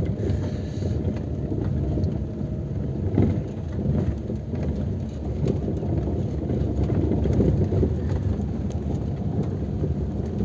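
Car-cabin road noise on a rough unpaved dirt road: a steady low rumble of tyres and suspension, broken by scattered small knocks and ticks of gravel and bumps.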